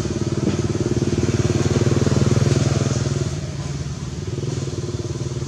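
A small engine running steadily with an even pulsing note, swelling to its loudest about two to three seconds in and then easing off.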